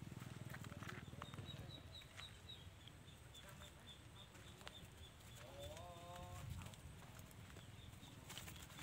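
Quiet outdoor background with a faint high chirp repeating about four times a second, and a short wavering animal call about six seconds in.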